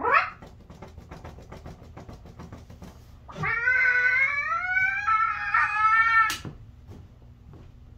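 A puppeteer's voice gives a long, wavering, animal-like cry lasting about three seconds. Before it come a short rising squeak and a faint, rapid clicking, and a sharp click follows it.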